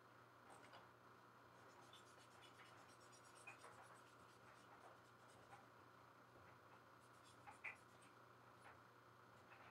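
Faint scratchy rubbing of a leather strap's edge being worked back and forth by hand in a slicker, burnishing the edge wetted with water and glycerin saddle soap, in two spells with a sharper tick near the end of the second. A faint steady hum lies beneath.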